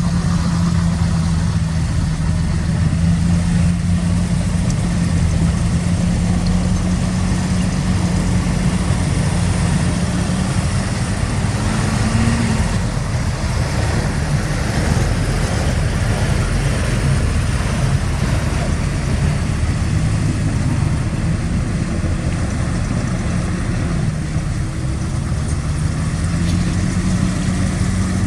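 Heavy diesel engine of earthmoving equipment running steadily, its pitch rising briefly about twelve seconds in and again near the end.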